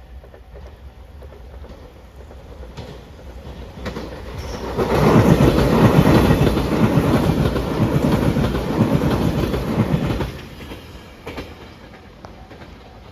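Limited express Shiokaze train with white Anpanman cars passing close by. The noise builds from about four seconds in, stays loud for about five seconds, then drops off sharply near ten seconds as the train clears.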